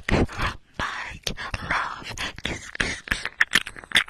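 Close-miked mouth sounds against an ear-shaped microphone cover: quick wet clicks and smacks mixed with breathy, whisper-like noises.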